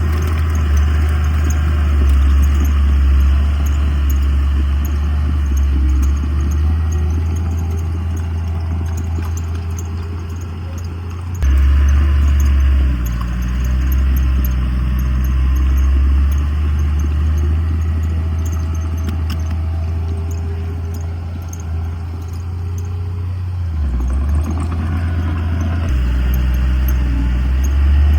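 Heavy earthmoving machinery, a bulldozer and dump truck, with their diesel engines running in a deep, steady drone. The engine note shifts in pitch and level, with a sudden jump about eleven seconds in.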